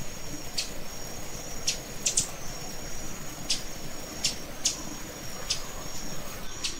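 Forest insects calling: a thin, steady high buzz broken by short, sharp high chirps at uneven intervals, about every half second to second. Beneath it, an irregular rustle of leaves and stems being handled as plants are picked.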